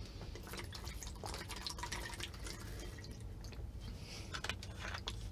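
A person drinking from a plastic bottle: faint gulps and sloshes of liquid with small clicks, over a steady low hum.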